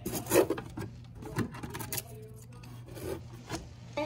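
Scissors cutting paper, with irregular rasping snips and paper rustling; the loudest a little under half a second in.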